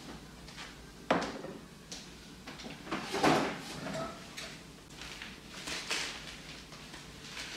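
Kitchen handling sounds: a sharp knock about a second in and a louder clunk around the middle, as a mug is set down and he sits at the counter, then crisp rustling as a newspaper is picked up and opened.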